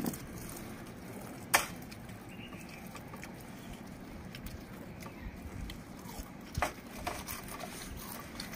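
Potato wafers being crunched, chewed and crumbled by hand, with a steady low background noise and a couple of sharp cracks, the loudest about a second and a half in and another past the middle.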